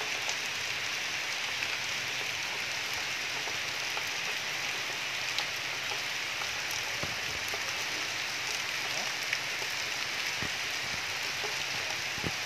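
Steady rain falling on wet stone paving, puddles and trees, with a few louder single drops close by.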